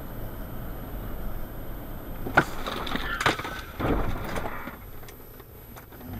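A vehicle driving, its steady road and engine noise picked up inside the car. A sharp click comes about two and a half seconds in, followed by a louder jumble of noise lasting about two seconds.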